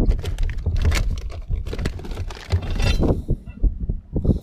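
Plastic tackle boxes and gear clattering and scraping as a hand rummages through a bass boat's storage compartment, with many sharp clicks and knocks.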